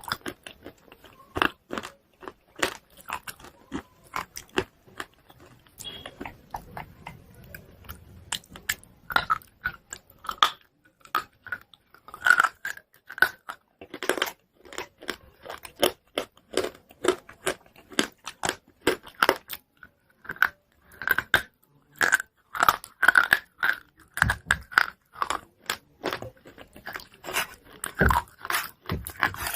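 Chalk pieces being bitten and chewed close to the microphone: dense, irregular crisp crunches, with a quieter stretch about six to nine seconds in.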